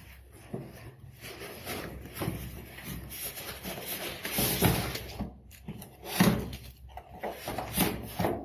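Cardboard boxes and plastic packing being handled and lifted out of a TV carton: irregular rustling with scattered knocks, the loudest a thump about six seconds in.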